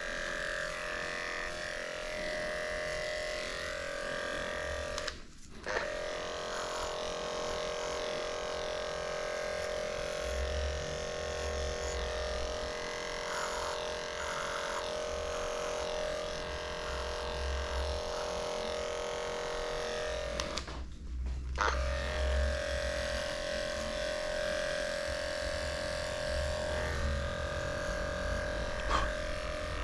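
Electric dog grooming clippers running with a steady hum, cutting out briefly twice, about five seconds in and again about twenty-one seconds in.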